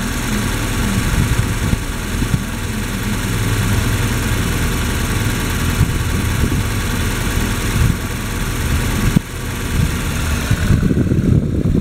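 2007 VW Golf 5 GT's 1.4 TSI (BLG) four-cylinder petrol engine idling steadily, heard from above the open engine bay during an engine test.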